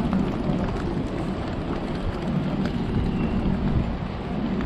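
Steady low rumble and rushing noise of a moving vehicle, with no distinct events.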